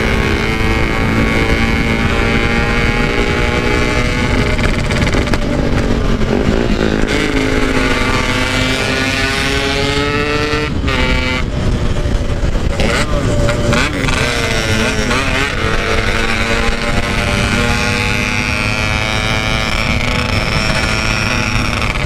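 Yamaha RX-King 135 cc two-stroke single-cylinder engine running hard at speed. Its pitch climbs and falls with throttle and gear changes, with a couple of brief breaks near the middle. Wind rushes on the microphone underneath.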